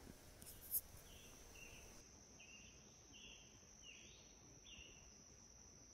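Near-silent summer garden ambience: a faint, steady high insect drone, with a run of about seven faint short chirps spaced roughly half a second apart. A single brief click sounds under a second in.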